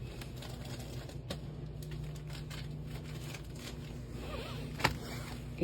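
Small packaged items handled by hand: faint clicks and rustles of plastic packaging, with one sharper click near the end, over a steady low hum.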